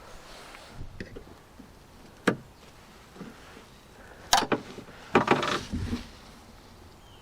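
Sharp clicks and light rattles of the door lock parts inside a Land Rover Discovery 2 door being handled and fitted: one click, then two short bursts of clicking a couple of seconds later.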